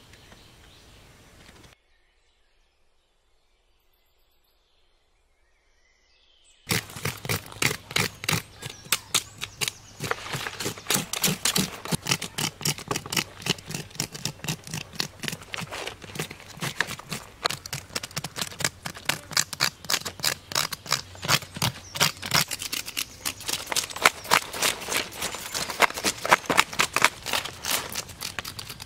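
After a few seconds of silence, a knife scrapes the charred outer skin off a crocodile's belly scales in rapid, steady strokes that continue to the end.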